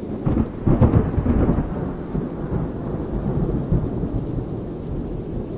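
Thunderstorm sound effect: thunder breaks just after the start, rumbles loudest for about a second, then goes on rolling over steady rain.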